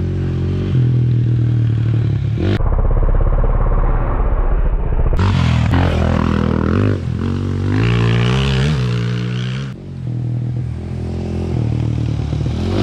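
Dirt bike engines running and revving, the pitch rising and falling as a bike rides past about midway, with the sound changing abruptly a few times.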